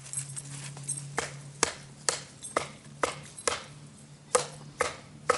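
Bushcraft knife being batoned into a piece of wood: a wooden baton knocking on the blade's spine, about nine sharp blows at roughly two a second, with a short pause before the last three.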